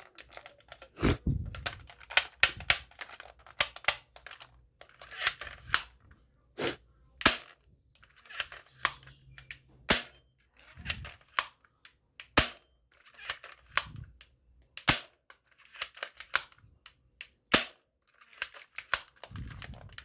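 Toy gun firing single shots, about twenty sharp snaps at irregular intervals, with fainter rattling and handling noise between them.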